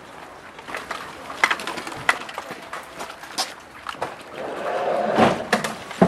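Footsteps of several police officers walking on a paved garden path, with irregular knocks and clicks from their boots and gear.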